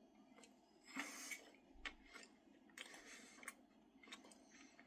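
Near silence with faint chewing and mouth sounds of a person eating a moist slice of cake, a few soft short noises about a second in and again near three seconds.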